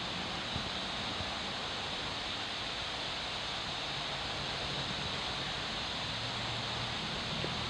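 Steady outdoor hiss like wind or rushing water, with a low hum underneath and a few faint taps.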